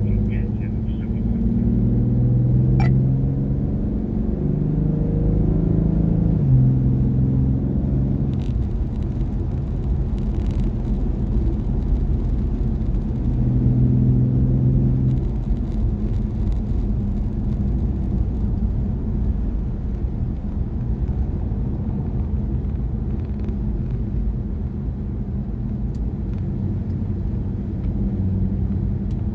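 BMW M240i's turbocharged 3.0-litre straight-six at track speed, heard from inside the closed cabin over tyre and road rumble. The engine note climbs and steps through gear changes during the first several seconds and again about halfway through, then settles to a steadier drone.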